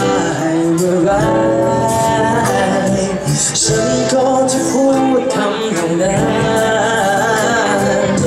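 Live pop music with a singer over a band, loud and continuous.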